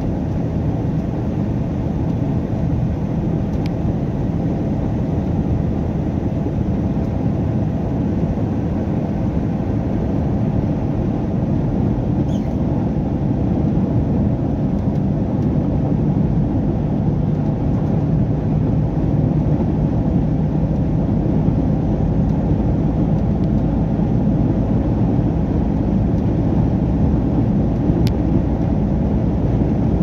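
Truck engine and tyre noise heard from inside the cab while driving on the highway, a steady low drone.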